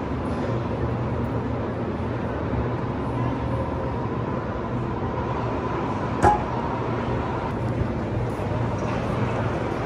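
Steady background ambience of a large exhibition hall: an even rumble with a constant low hum, and one sharp knock about six seconds in.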